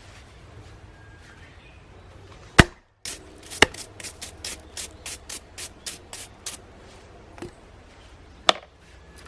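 Hatchet chopping red pine wood: a sharp chop about two and a half seconds in, then a run of quick, lighter knocks at about four a second, and another sharp chop near the end.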